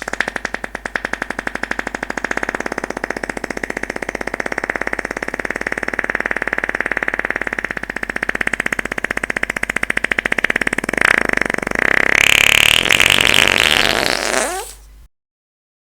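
One long fart: a fast, fluttering rattle held for about fifteen seconds, rising into a higher squeal near the end before it tails off.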